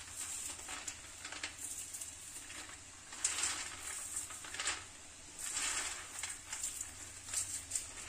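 Peanuts being rubbed between the hands in a steel plate to loosen their skins: dry rustling and rattling of the nuts against each other and the metal, in uneven bursts.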